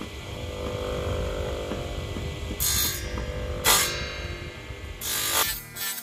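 Homemade table saw running steadily, with three short bursts of cutting noise as a thin wooden strip is fed through the blade, about two and a half, almost four and five seconds in.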